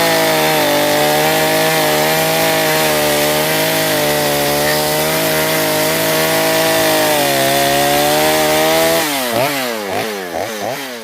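Chainsaw running steadily at high revs, then from about nine seconds in the throttle is let off and blipped several times, the pitch dropping and rising again as the engine winds down.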